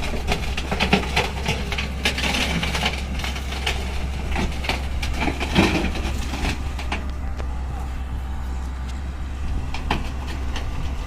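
Diesel engine of heavy earthmoving machinery running steadily, with scattered knocks and clanks of metal.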